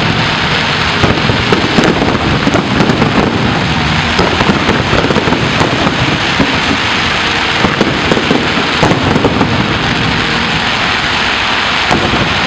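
Dense barrage of fireworks: many overlapping bangs and crackles with no pause between them.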